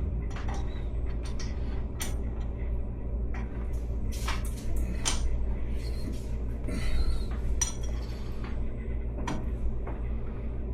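Scattered metal clinks and taps of tools, bolts and parts as the spring-loaded check assembly and cover of a 2-inch backflow preventer are worked back together. A steady low hum runs underneath.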